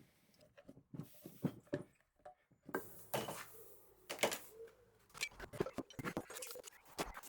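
Sparse, irregular light knocks and clicks of hand tools and timber being handled during carpentry work.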